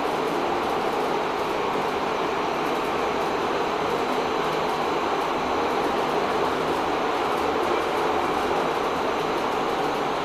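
Steady running noise of a KONE inclined machine-room-less traction elevator car travelling along its inclined track, heard from inside the glass car.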